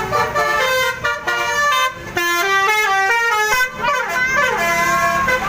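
Bus telolet basuri horn, a set of multi-tone air horns, playing a tune: a quick run of short, stepped horn notes that change pitch several times a second.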